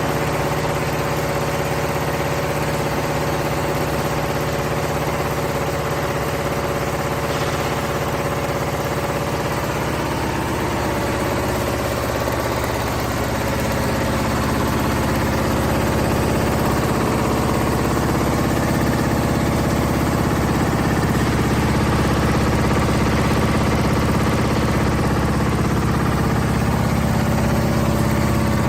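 M Tex high-speed machine running steadily with a continuous mechanical hum. Its tones shift about halfway through and it gets slightly louder.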